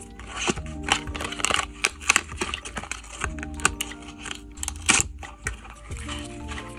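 Plastic contact-lens blister packs and cardboard lens boxes being handled, giving a run of clicks, taps and crinkling, the sharpest click near the end, over soft background music with held notes.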